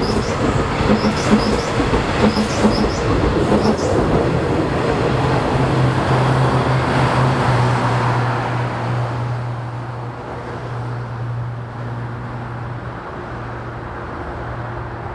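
Seoul Subway Line 2 electric train moving at the station: wheels clack over rail joints for the first few seconds, then a steady low hum takes over and the sound fades away after about ten seconds.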